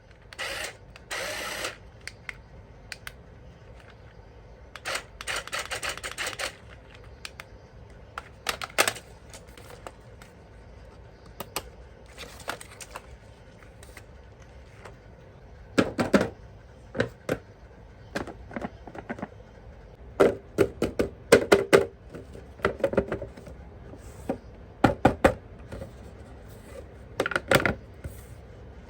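Hands handling plastic toy parts and packaging: scattered clicks and knocks with a few short rustles, the knocks coming in quick clusters in the second half.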